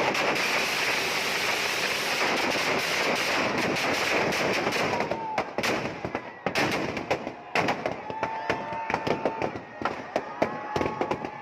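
Firecrackers packed into a burning Ravana effigy going off: a dense, unbroken crackle for about the first five seconds, then thinning into separate sharp bangs. Twice in the second half a held whistling tone sounds over the bangs.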